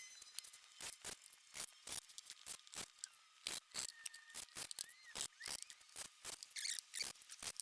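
A fast, irregular series of faint sharp clicks, several a second.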